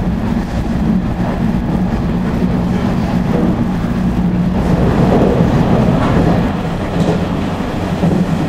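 Running noise of a JR East 485 series electric train heard from inside the car at speed: a steady rumble of wheels on rail with a constant hum. About halfway through it turns into a rougher, slightly louder rumble.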